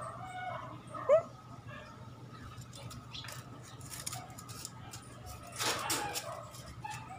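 A small pet animal gives a few short whining calls in the first second or so, the last one rising and the loudest. A brief rustling noise follows near the end.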